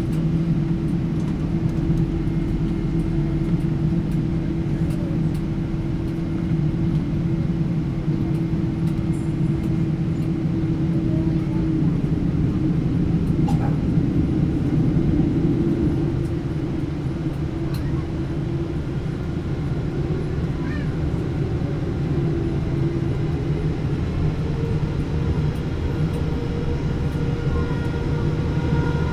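Cabin noise inside a Japan Airlines Boeing 777-300 in flight: a steady rumble of engines and airflow with a low hum. One steady tone drops out about halfway through, and higher steady tones set in near the end.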